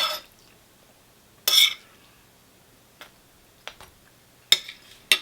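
Metal cutlery clinking against a plate or takeaway container: several sharp, separate clinks with one longer scrape about a second and a half in.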